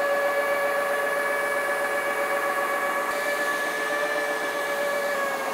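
Kärcher FC 5 cordless hard-floor cleaner running with a steady whine over a rush of air, its motor and rotating rollers mopping up and sucking in spilled coffee from the floor.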